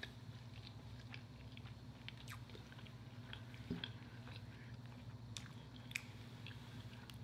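Faint chewing of a mouthful of salmon and rice, heard as soft scattered mouth clicks and smacks over a low steady hum.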